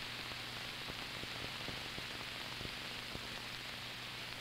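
Steady hiss and low hum of an old film soundtrack, with faint scattered crackles.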